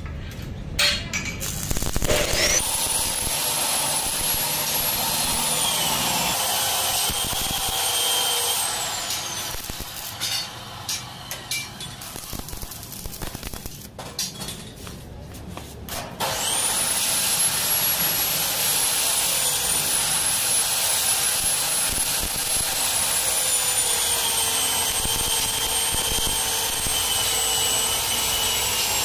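Stick (arc) welding on a steel gate frame: the electrode's arc crackling and hissing steadily for about eight seconds, then a few seconds of short broken crackles and clicks as the arc stops and is struck again, then steady crackling for the rest. A thin high whine that wavers in pitch runs along with the steady stretches.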